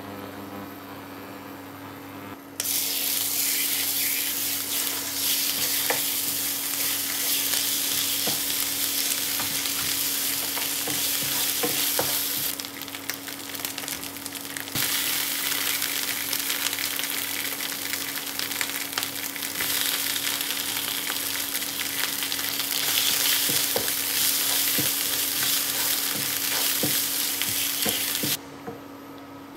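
Chilli spice paste for rendang sizzling in hot oil in a non-stick frying pan, stirred with a wooden spatula that scrapes and taps the pan. The sizzle starts about two and a half seconds in, eases for a couple of seconds near the middle, and stops shortly before the end, over a steady low hum.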